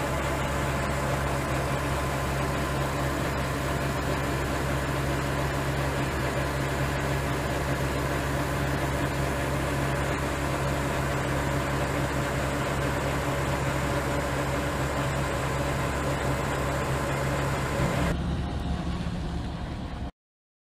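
AGRAR-bag ex-bag grain-bag unloader running, its auger carrying grain up and into a trailer: a steady mechanical hum with a low drone under it. The sound thins about 18 seconds in and cuts off suddenly just before the end.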